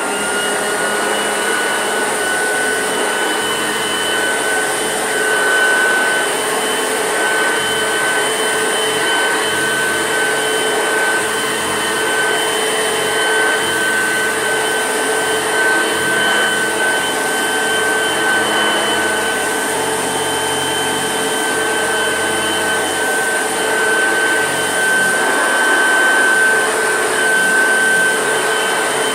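Hoover Junior upright vacuum cleaner running steadily, a smooth motor noise with a steady high whine on top. It is the machine that the owner says purrs along beautifully, unlike her other, screechy one.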